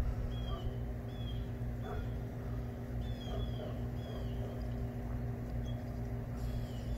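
Dogs yipping and whining in short high-pitched calls, about one a second, over a steady low rumble.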